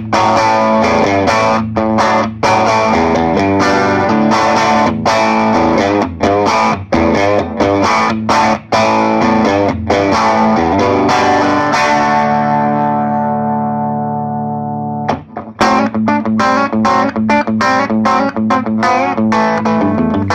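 Electric guitar, a Gibson Les Paul Special TV, played straight into a 1965 Selmer Zodiac Twin 50 valve amp on its second channel with the contra bass filter on and no pedals. Chords are struck repeatedly. About twelve seconds in, one chord is left to ring and fade for about three seconds before the playing starts again.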